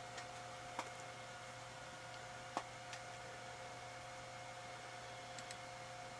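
A faint, steady low hum and whine from a running desktop computer, with a few soft clicks scattered through; the clearest click comes about two and a half seconds in.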